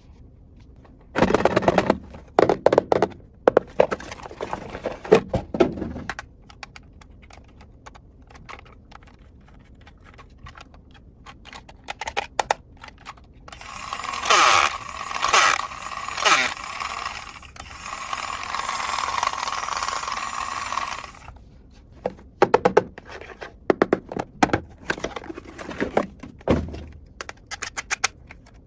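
Plastic toy kitchen pieces being handled and set down, with clusters of sharp clicks, knocks and scrapes. In the middle comes a hissing stretch of several seconds with a steady tone under it.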